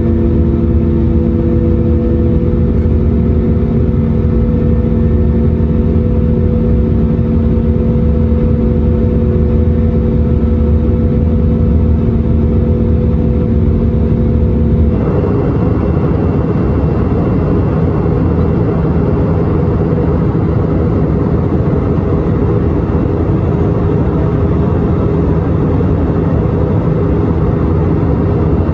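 Airbus A319 jet engines and airflow droning inside the cabin by the wing, a steady loud drone with several held tones. About halfway through it changes suddenly to a broader rushing noise with fewer tones.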